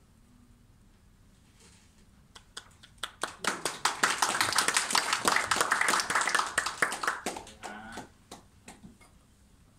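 Audience applauding: a few scattered claps a couple of seconds in build into a full round of applause, then thin out to single claps and stop.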